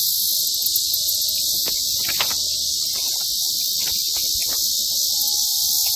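Chorus of insects: a dense, steady, high-pitched buzz that holds unbroken, with a few faint short sounds and a brief held tone near the end beneath it.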